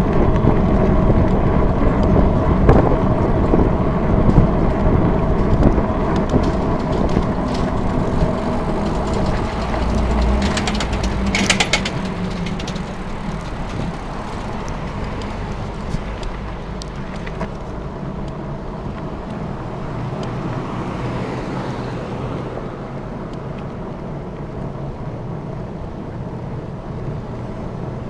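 Road traffic: car and truck engines running beside a moving bicycle, with a short burst of rapid clicking about eleven seconds in. The noise is louder in the first half and grows quieter after about twelve seconds.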